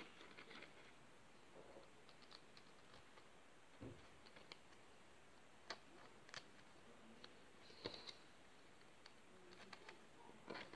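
Near silence with faint, scattered clicks and taps of small 3D puzzle pieces being handled and slotted together.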